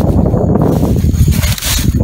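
Heavy low rumbling of wind on the microphone, mixed with rustling as the camera is carried through tall grass.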